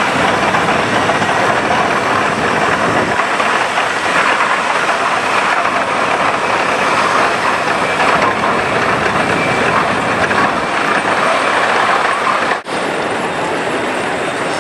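Steam traction engines rolling past, a steady mechanical clatter of running gear and wheels with no clear beat. A sudden short drop in level about three-quarters of the way through, after which the noise goes on a little quieter.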